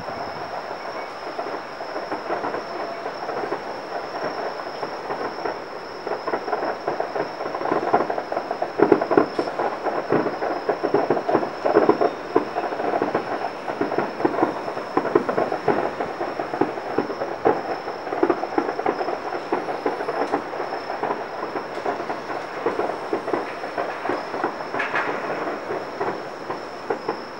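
Distant fireworks display: a dense, continuous crackle of bursts and pops that blur into a rolling rumble, heaviest in the middle stretch.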